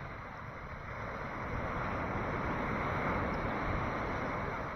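Gentle sea waves washing ashore, the surf noise swelling to a peak about three seconds in and then easing off.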